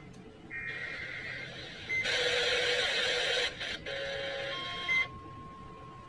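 NOAA weather radio receiving an Emergency Alert System tornado warning: buzzy, screeching digital bursts of the alert's data header, then about four and a half seconds in, the steady one-pitch warning alarm tone begins.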